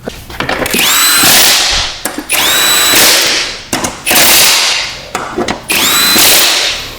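Electric power driver running bolts on a mower deck in four bursts of about a second each, its motor whine rising quickly at the start of each burst and then holding steady.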